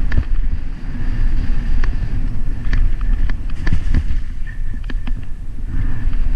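Mountain bike riding fast down a rocky dirt trail: tyres rumbling over gravel and loose stones, the bike rattling, with many sharp knocks as it hits rocks, and wind noise on the microphone.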